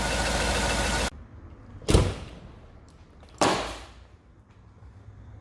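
Chevy 5.3 V8 idling with a valve cover off and a collapsed lifter on cylinder 6. It cuts off abruptly about a second in, and two loud slams follow, about a second and a half apart.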